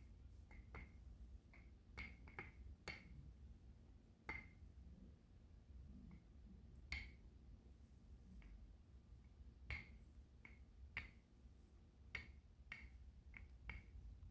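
Faint, irregular light clicks and knocks from a wooden rolling pin working pizza dough flat on a countertop, over a low room hum.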